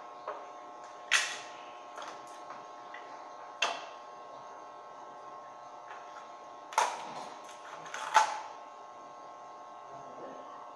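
Sharp knocks and clatters of wooden strips handled against a stainless steel grille panel, each ringing briefly, the loudest about a second in, near four seconds and twice near seven and eight seconds, over a steady hum.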